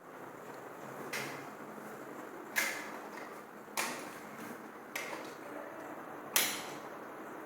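Small hard objects handled and set down: five sharp clicks and knocks, spaced a second or so apart, over a steady hiss.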